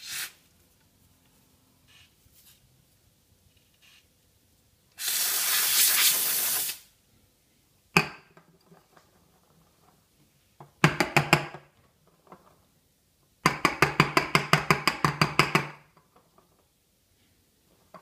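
Espresso machine steam wand releasing steam: a steady hiss for about two seconds, then a sharp click, then two bursts of rapid sputtering pulses, about seven a second, the second lasting about two seconds.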